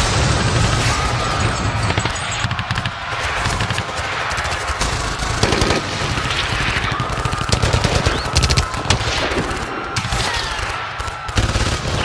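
Battle sound effects: rapid, continuous gunfire with automatic bursts over a steady low rumble.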